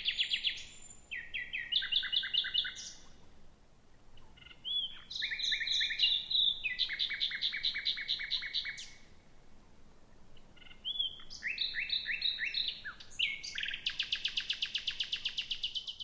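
Male common nightingales singing at night, rival birds countersinging: three bouts of rapid, evenly repeated notes a few seconds long, with short pauses between them.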